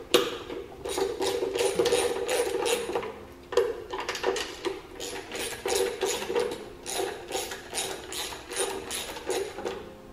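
Socket ratchet with an extension clicking in quick runs of strokes as bolts are worked loose on top of an engine, with a short break about three and a half seconds in.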